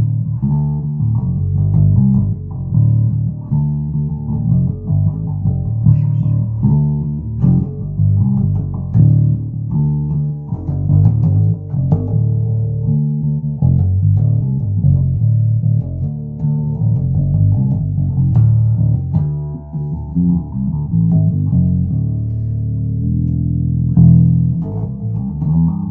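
Birdsong Cortobass short-scale electric bass played unaccompanied, its D tuner dropping the low E string to D: a continuous run of plucked notes, mostly low.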